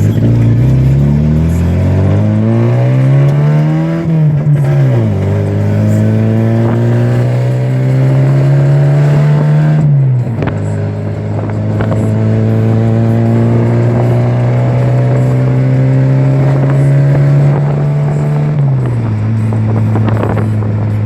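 Engine revved and held at raised speed with a deep, throaty exhaust note. Its pitch climbs over the first few seconds and drops back about four seconds in. It then holds steady, easing down in steps about ten seconds in and again near the end.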